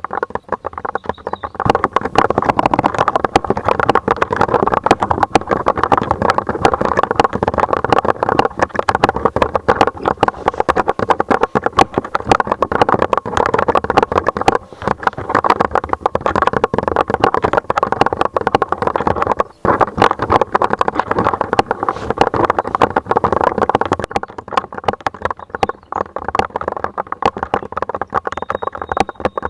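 Fast continuous typing on a Lofree mechanical keyboard: a dense stream of key clacks, with a brief pause about twenty seconds in.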